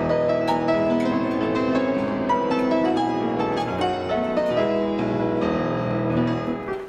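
Dance-hall music with piano for a cabaret dance number. It drops away suddenly near the end.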